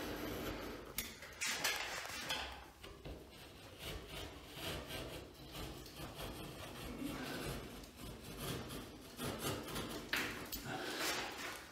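Utility knife blade scraping through a drywall ceiling in a series of strokes along a marked line, going over the same cut again and again to get all the way through the board.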